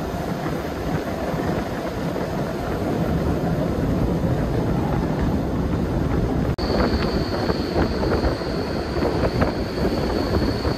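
Passenger train running on the rails: a steady rumble and rattle. About two-thirds of the way through, the sound cuts abruptly to a steady high whine over a rapid clatter.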